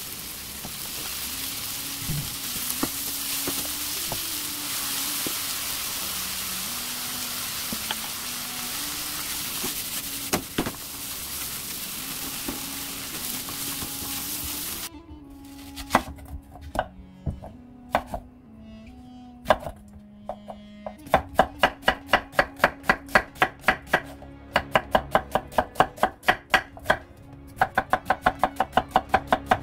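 Onion slices sizzling as they stir-fry in a nonstick pan for about the first half. Then a knife cuts onion on a wooden cutting board: a few separate cuts at first, then quick, even chopping.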